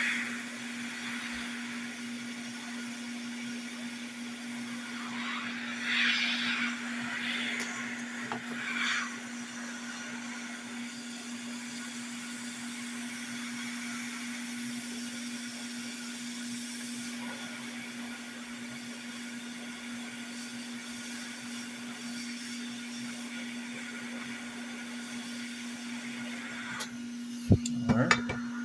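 Steady blowing hum of a hot air rework station heating the old PS5 HDMI port to desolder it. A few sharp clicks and knocks near the end.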